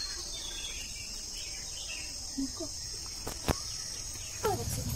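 Steady high-pitched chorus of insects singing, with a sharp click about three and a half seconds in and a voice coming in near the end.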